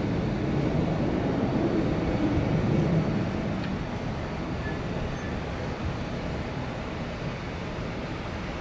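Jet airliner engines running at the airport, a steady low rumble that swells slightly a couple of seconds in and then eases off.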